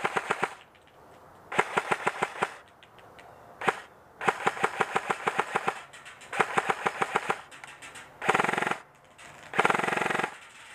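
Classic Army ECS M4 airsoft electric gun firing: several strings of quick single shots, about seven a second, then two short, nearly continuous full-auto bursts near the end.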